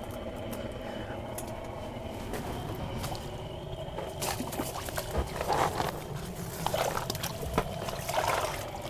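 Water splashing and sloshing in an ice-fishing hole as a small lake trout is slipped back in, a few irregular splashes through the second half.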